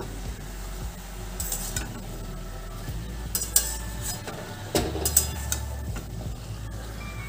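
A metal spatula stirring and scraping cut water lily stems around a kadai, with a few sharper scrapes against the metal. Under it there is a light sizzle from the stems frying in hot mustard oil over a high flame.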